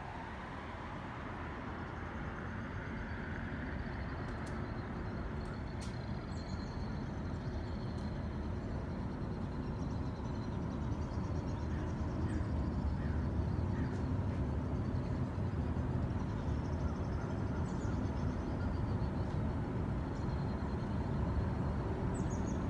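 Outdoor ambience: a steady low rumble that slowly grows louder, with faint, high bird chirps now and then.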